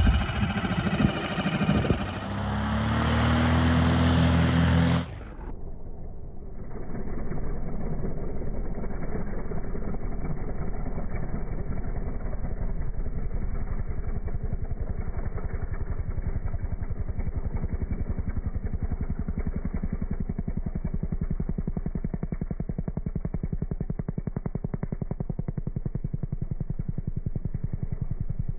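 An outboard motor on an inflatable boat speeds up, its pitch rising and then holding. About five seconds in this gives way to a Maule M-6 bush plane's piston engine and propeller running steadily as it flies low over a beach.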